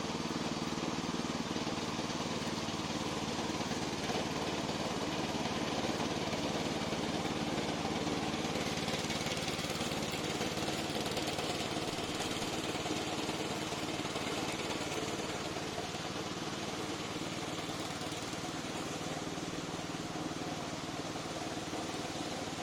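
Gasoline engine of a remote-control lawn mower running steadily.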